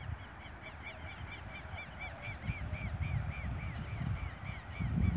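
A bird calling a long, rapid series of repeated arched notes, each rising and falling, about four a second. Wind rumbles on the microphone underneath and gusts louder near the end.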